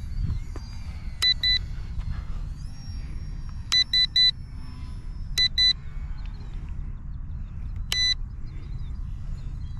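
Short electronic beeps from the RC helicopter's setup electronics: two quick beeps, then three, then two, then one longer beep near the end, over a steady low wind rumble on the microphone.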